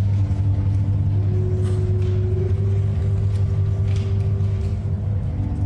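Church organ playing slow held chords over a deep, steady bass, the upper notes changing every second or two.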